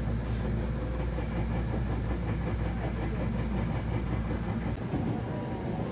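Electric commuter train on the Osaka Loop Line running, heard from inside the carriage: a steady rumble of wheels on rails, whose deepest part thins out near the end.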